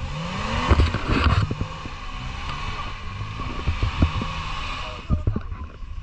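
An off-road 4x4's engine revving up, with heavy thumps and knocks as the vehicle works through muddy ruts. A rushing noise of tyres and mud runs along with it and fades out about five seconds in.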